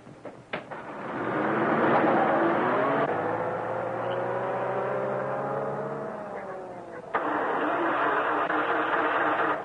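A motor vehicle's engine speeding up, its pitch rising and then falling away as it fades. About seven seconds in, it cuts abruptly to a steady, louder engine-and-road noise that stops suddenly near the end.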